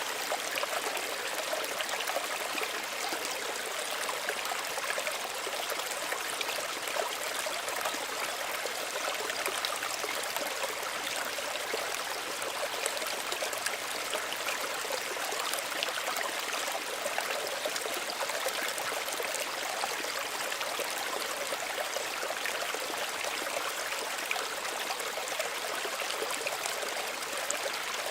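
Small stream running over stones, a steady trickling and babbling of water with fine splashes.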